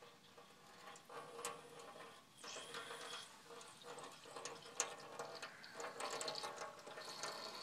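Wrench clicking and grating as it works the drain plug at the bottom of an air compressor tank, with a faint steady whine underneath.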